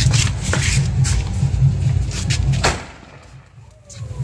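Sky shot firework going off: a few sharp pops over a heavy low rumble. It turns much quieter about three-quarters of the way through.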